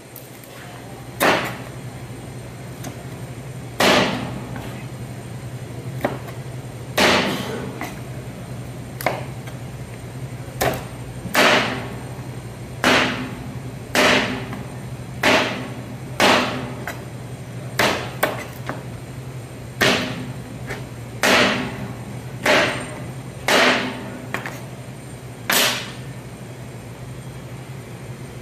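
Kitchen knife chopping through raw chicken into a plastic cutting board: about twenty sharp chops, roughly one every second or so, over a steady low hum.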